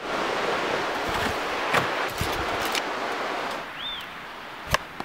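River water rushing over rapids in a steady hiss that stops suddenly about three and a half seconds in. Next comes a single short chirp, then one sharp knock from a knife blade cutting into maple bark.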